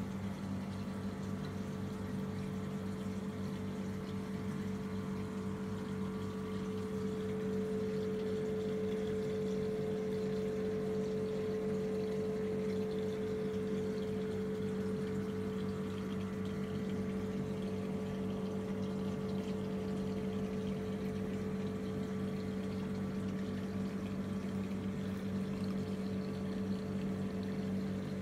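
Reef aquarium pumps humming steadily, with the hiss of moving water. A fainter, higher tone rises a little in the middle and then eases off.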